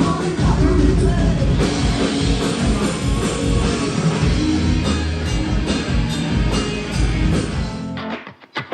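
Loud rock music with drum kit, guitars and singing. About eight seconds in it cuts off and plucked electric guitar notes begin.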